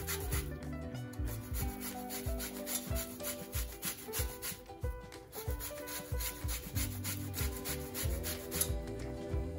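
Lemon peel being zested on a flat handheld metal grater: quick, rhythmic scraping strokes, with short pauses about a second in and around the middle.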